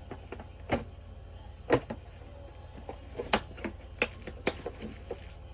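Irregular sharp clicks and knocks of metal hand tools being handled and set down, about ten in a few seconds, the loudest a little under two seconds in. A steady low hum runs underneath.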